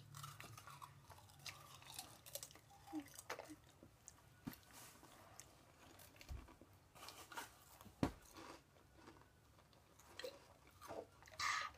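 Faint crunching and chewing of a potato chip close to the microphone, with scattered small crackles and clicks.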